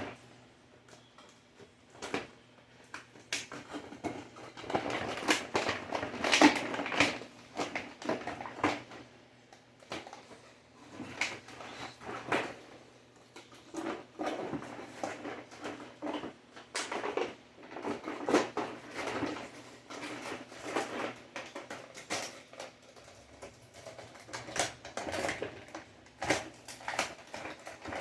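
Toy blaster ammo and its plastic and cardboard packaging being handled and pulled apart: irregular rustling, clicks and small knocks.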